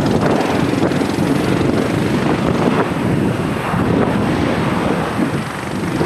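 Steady rushing rumble of a low-flying jet airliner on approach, with wind on the microphone.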